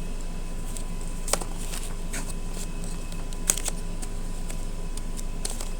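A few light clicks and taps from metal Zippo lighters and their boxes being handled, the sharpest about a second in and again halfway through, over a steady background hum.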